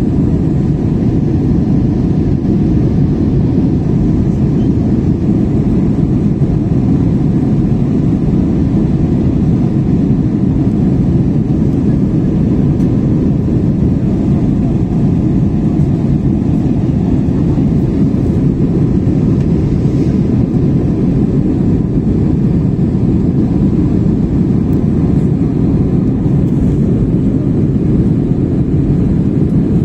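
Steady, low cabin roar of an Airbus A320-family jet airliner climbing after takeoff: engine and airflow noise heard from inside the passenger cabin, even and unbroken.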